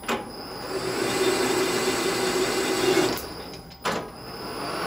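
Metal lathe running at about 113 RPM while screw-cutting an internal thread, with a steady hum and cutting noise. It starts with a click, dips briefly about three seconds in, clicks again just before four seconds, and runs on.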